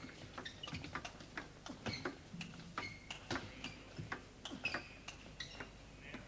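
Celluloid table tennis ball clicking back and forth in a fast doubles rally, sharp ticks as it strikes the bats and bounces on the table, about two to three a second in an uneven rhythm.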